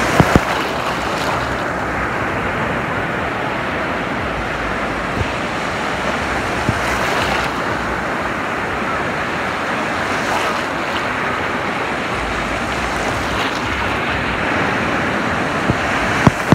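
Ocean surf washing onto the beach, a steady rushing sound that swells now and then as waves break. There are two brief sharp knocks right at the start.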